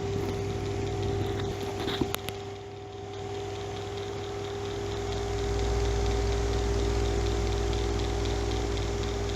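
Bathroom exhaust fan running with a steady hum and whir. There are a couple of sharp clicks about two seconds in, and a deeper low rumble builds from about halfway.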